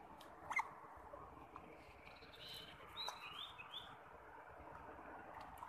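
Faint high chirps from a small animal over a steady hiss. There is one short chirp about half a second in, then a run of quick gliding chirps around the middle.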